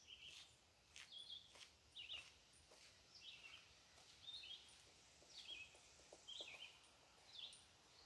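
Wild songbirds chirping faintly around backyard bird feeders: short, high chirps repeating about once a second, with a few sharp clicks in the first two seconds.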